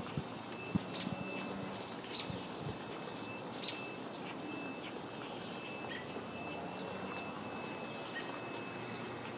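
Outdoor ambience with small birds chirping now and then, several short chirps in the first few seconds and fewer after, over a steady background hiss. A thin, high note keeps breaking off and resuming.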